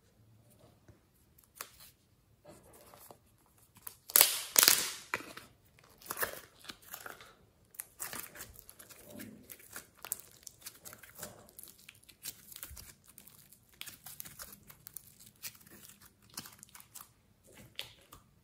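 Orange soft clay pulled from its plastic tub and squeezed and kneaded in the fingers: a run of sticky crackles, clicks and squishes, with a louder noisy burst lasting about a second about four seconds in.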